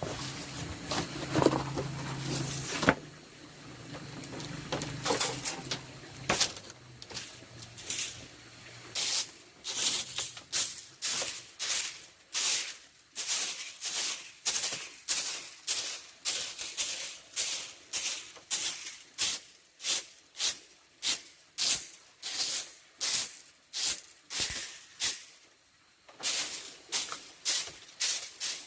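Rhythmic rasping strokes, about two a second, like hand scraping or scrubbing, with a short pause near the end. They follow a few seconds of irregular handling noises.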